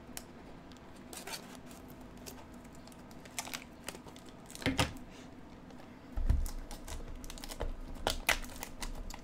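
Hands handling and opening a cardboard trading-card blaster box: scattered light clicks and taps, a louder knock about five seconds in and a dull thump about a second later.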